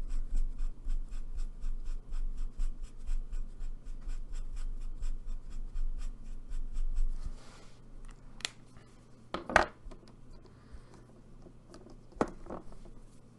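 Alcohol marker nib scrubbing back and forth on paper in quick, even strokes, about five or six a second, as colour is laid down and blended. This stops about seven seconds in and is followed by a few separate light knocks and clicks.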